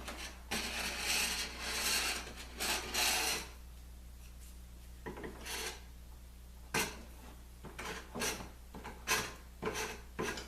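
Several scraping or rubbing strokes against wood, then a scattered run of light clicks and knocks.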